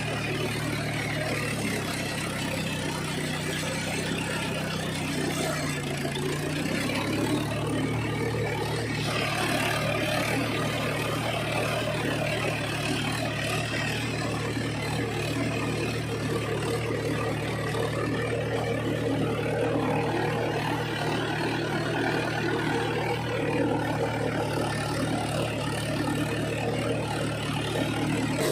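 Mahindra 475 tractor's four-cylinder diesel engine running steadily under load while ploughing wet, muddy soil, its note shifting slightly about six seconds in.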